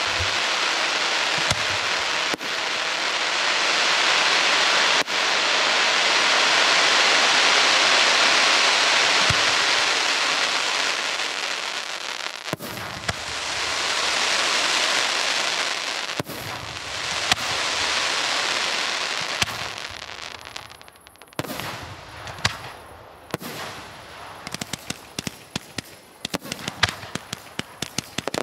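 Aerial firework shells bursting, their effects filling the air with a dense crackling hiss that swells and fades, with sharp bangs between. From about twenty seconds in, the hiss dies away into a quick run of sharp pops and bangs as a fan of comets and further shells fire.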